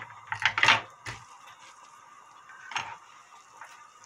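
Kitchen utensils being handled: a quick run of sharp knocks and clatters about half a second in, and one more knock near three seconds.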